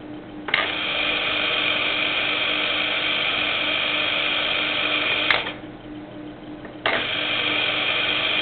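Hermetic piston compressor running with a steady mechanical whine. It starts with a click about half a second in, cuts off about five seconds in, and starts again with a click a second and a half later.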